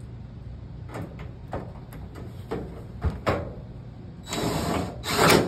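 A screw being fitted into the dryer's panel: a series of small clicks and knocks, then a louder noise lasting about a second and a sharp knock near the end.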